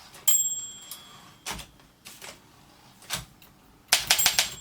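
Olympia Monica portable typewriter keys and typebars striking. Each stroke is a sharp clack, and the line-end bell rings a clear, fading ding after the first stroke. Near the end comes a quick run of strokes with the bell ringing again, as the carriage is taken past the right margin with the margin release.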